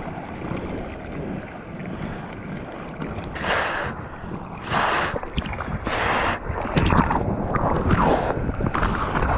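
Water sloshing and rushing over the deck of a surfboard being paddled, heard close to the water, with a splash from each arm stroke about once a second from the middle on.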